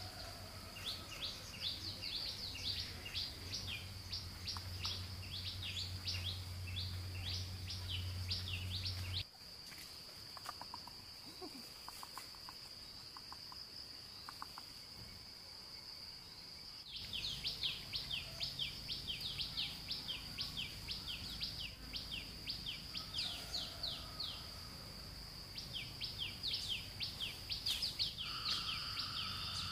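Forest ambience: a steady high-pitched drone with fast runs of descending chirps, about four a second, typical of insects or birds in the undergrowth. The chirping stops for several seconds in the middle and then resumes.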